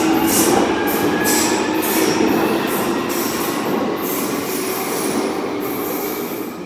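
London Underground Jubilee line 1996 Tube Stock train pulling out of the platform and running off into the tunnel, its wheels squealing over a rushing rumble. The sound slowly fades as it gets further away.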